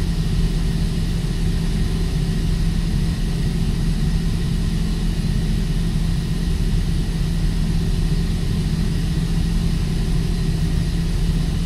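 Steady, loud drone of heavy machinery running, with a deep constant hum and no change in level.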